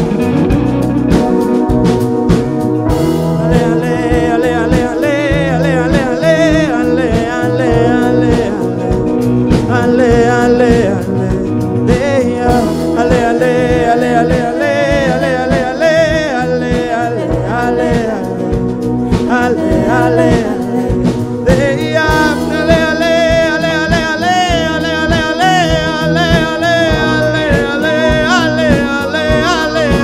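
Live rock band playing: a male voice singing over electric guitar and a drum kit. The singing grows stronger and higher about two-thirds of the way through.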